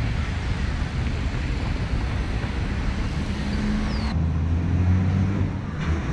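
City street ambience: steady traffic rumble with wind noise on the microphone, and a low engine hum that comes up about four seconds in.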